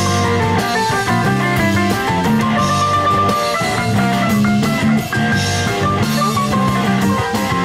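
Rock band playing live in an instrumental passage: piano-style keyboard, electric guitar and drum kit, with a cymbal splash roughly every three seconds.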